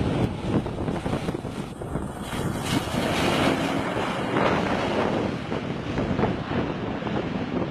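Four-engine turboprop transport plane running its propellers on the snow, a steady rumbling roar heavily mixed with wind buffeting the microphone.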